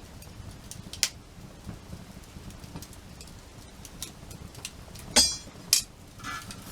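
Wood fire crackling, with scattered sharp pops at irregular intervals: one loud crack about a second in and two loud pops close together about five seconds in.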